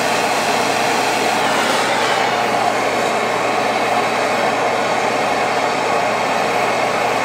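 Propane torch flame burning with a steady hiss as it heats a steel rifle bolt face to flow silver solder.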